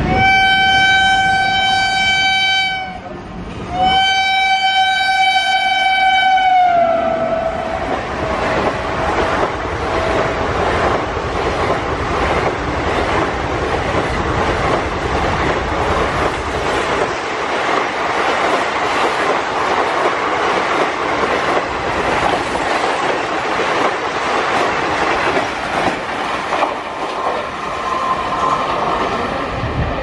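WAP-5 electric locomotive's horn sounding two long blasts of about three seconds each as it comes through at speed, the second sliding down in pitch as the locomotive passes. Then the express's coaches rush past with a steady clatter of wheels on the rails.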